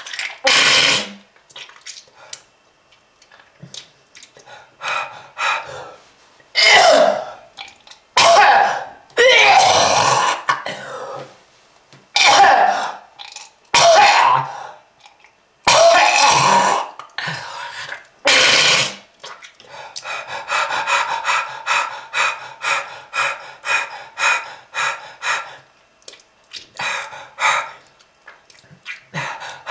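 A person's harsh smoker's cough: a series of loud coughing fits and throat clearing, then, about two-thirds through, a rapid run of short hacking coughs, about two a second.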